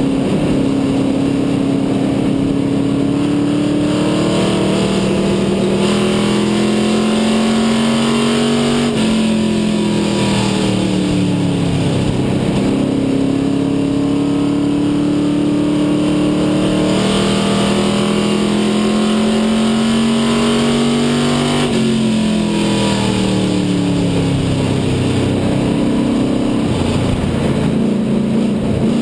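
Dare Stock race car's engine at racing speed, heard from inside the cockpit. The revs climb slowly, then drop sharply twice and build again as the driver lifts off for the turns and gets back on the throttle.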